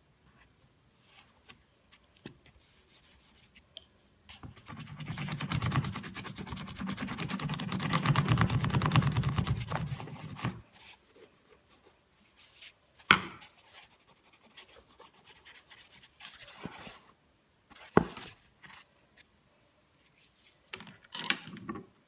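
Small plastic rolling pin rolled back and forth over sugarpaste on a plastic board: a steady rumbling rub for about six seconds. Two sharp knocks follow some seconds apart, and a brief rub near the end.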